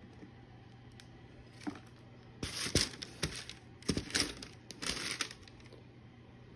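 Packing paper crinkling and rustling as a boot is handled in its cardboard box, in three bursts of about a second each, starting about two and a half seconds in.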